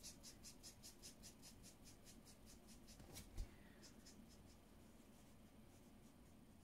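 A marker tip scratching quickly over paper as a stamped image is coloured in, about six short strokes a second, faint and fading away after four seconds or so. A single soft knock comes about three seconds in.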